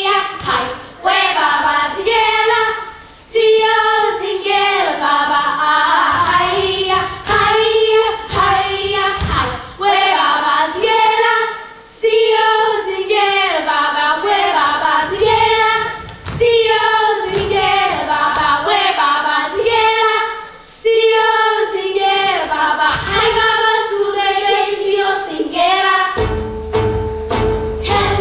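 A chorus of young voices singing together in short phrases over musical accompaniment. Near the end the singing stops and the instrumental music carries on.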